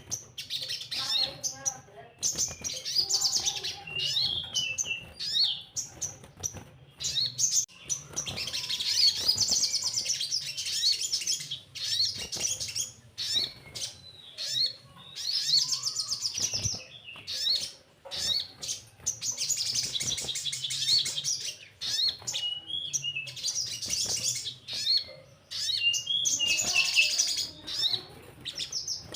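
Sogon sunbird singing in repeated high, rapid chattering trills and twittering phrases, broken by short pauses.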